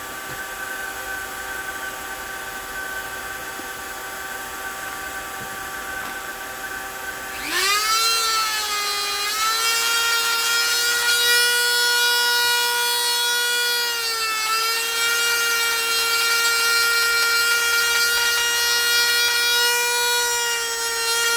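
Heat gun's blower running with a steady whine, then at about seven and a half seconds in jumping to a louder, higher whine that holds. It is blowing unheated air with the temperature turned all the way down, to cool the heating element so it doesn't burn out prematurely.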